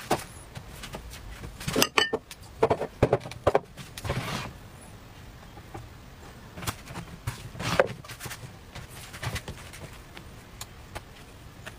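Scattered clicks and knocks from an electric dip-style crepe pan and plastic bowls and trays being handled, as the pan is dipped in batter and the thin crepe wrappers are peeled off and stacked. A brief soft hiss comes about four seconds in.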